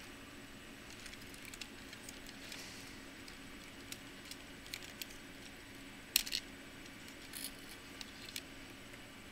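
Scattered light clicks and short scrapes of small laptop parts being handled during disassembly. The loudest is a quick double click about six seconds in. A faint steady hum runs underneath.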